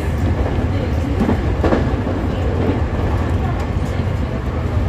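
Nankai 2000 series electric train running, heard from the front cab: a steady low rumble of wheels on the rails, with a few light clicks as it rolls over the tracks.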